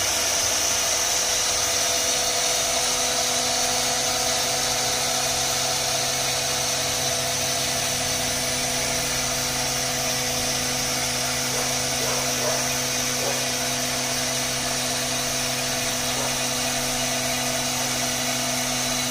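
CNC router spindle running steadily with a high whine, cutting a WPC (wood-plastic composite) board.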